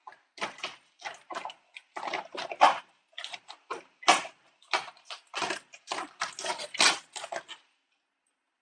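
Grated Parmesan cheese being shaken out of its container in many short, irregular shaking bursts. It cuts off abruptly about three-quarters of the way through.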